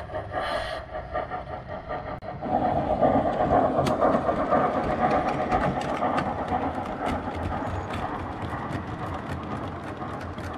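A 7mm-scale model freight train running past close by. A steady running rumble starts about two seconds in, and many quick regular clicks follow as the wagon wheels pass over the rail joints.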